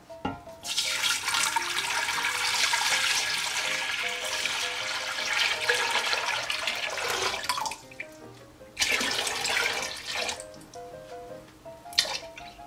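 Liquid poured in a thick stream into a large stainless steel stockpot, splashing steadily for about seven seconds, then a second, shorter pour, and a thin trickle near the end. Soft background music plays under it.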